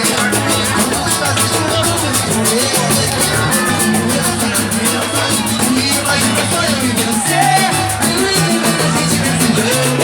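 Upbeat Latin-style music with a steady percussion beat and a moving bass line.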